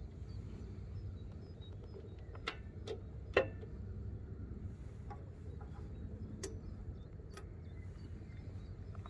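Handling noises on a Kreidler RM moped that is not running: a few light clicks and taps as the fuel tap and kickstart pedal are worked, the sharpest about three and a half seconds in, over a low steady rumble.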